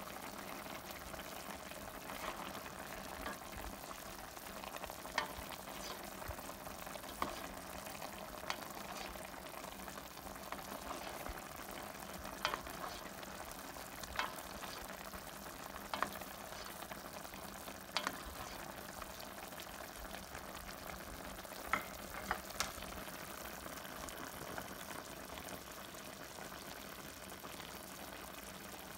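Chicken adobo simmering in a stainless steel pan, the sauce bubbling with a steady hiss. A spoon stirs through it and knocks against the pan about eight times over the first twenty-odd seconds.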